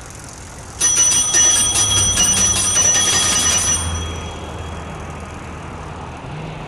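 Bicycle bell ringing in a rapid trill for about three seconds, starting about a second in and then fading, over a faint, steady low background rumble.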